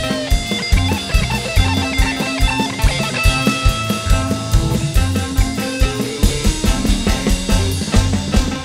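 Rock music: guitar and bass over a drum kit keeping a steady beat.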